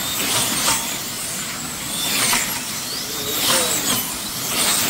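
Slot cars racing on a banked multi-lane track, their small electric motors whining, with the pitch gliding up and down as the cars pass. The sound swells about every second and a half as the pack goes by.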